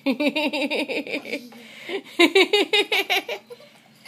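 A woman laughing in a run of quick giggles, a short pause about a second and a half in, then a second, louder run of laughter.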